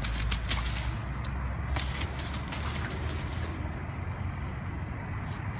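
Dry fallen leaves rustling and crackling, with a few brief crunches, over a steady low rumble.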